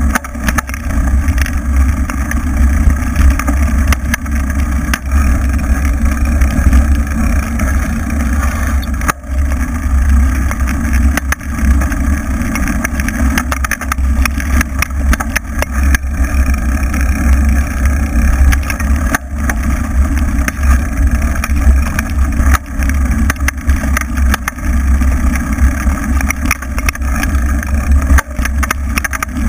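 Steady, loud rumble of a knobby-tyred vehicle riding over a rough dirt track, broken by many short knocks and rattles as it hits bumps.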